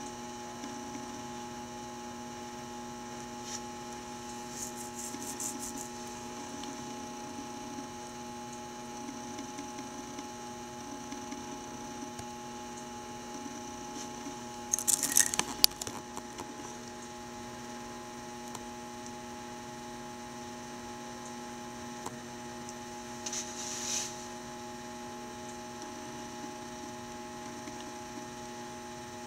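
Steady electrical hum made of several held tones, broken by a burst of clicking and rustling about halfway through and a shorter one a few seconds later.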